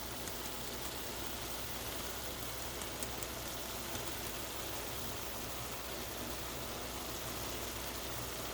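Steady hiss of a pot of ground turkey and vegetable stew cooking on the stove, with a few faint ticks.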